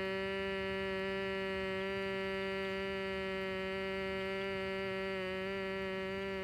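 A woman humming one long, steady note on a single pitch: the humming exhale of bhramari (bumblebee) breath.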